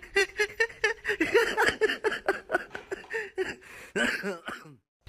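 A person's high-pitched voice talking quickly and laughing, cutting off abruptly near the end.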